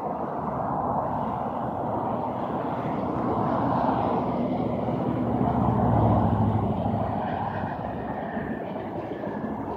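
Engine noise of a passing vehicle: a steady rush with a low hum that swells to a peak about six seconds in and then eases off.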